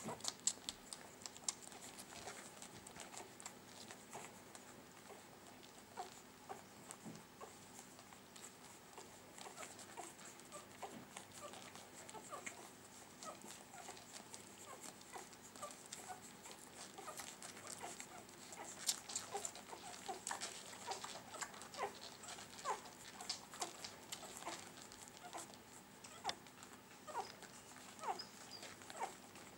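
Newborn puppies nursing: faint, scattered squeaks and small whimpers over soft suckling clicks, busier in the second half.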